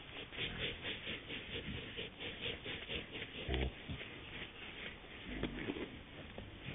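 Wild boar rubbing and scratching its bristly hide against a tree trunk: rapid rasping strokes, about five a second, for the first half, then slower and sparser. There are short low grunts about halfway through and near the end.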